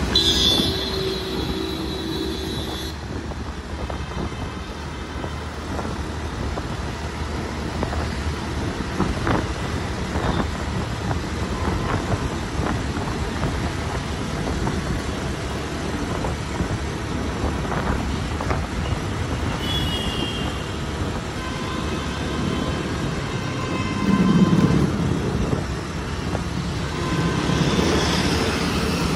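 Busy city road traffic heard during a drive, a steady rush of engines and tyres. Vehicle horns sound with long steady tones near the start and several more times in the last third.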